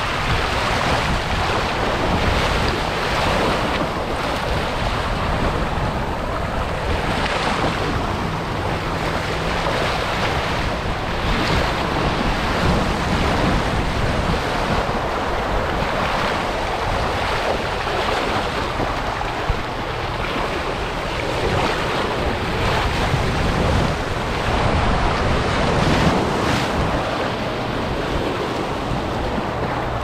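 Water rushing and churning down a fiberglass raging-river water slide channel, heard up close at water level as a steady, loud wash of noise.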